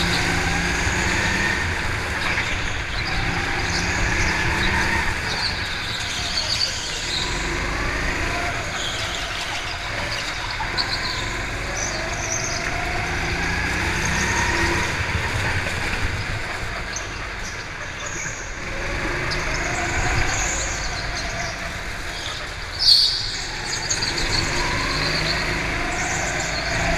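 Go-kart engine running under the driver, its pitch climbing as it accelerates and dropping as it slows into corners, again and again. A brief sharp noise stands out near the end.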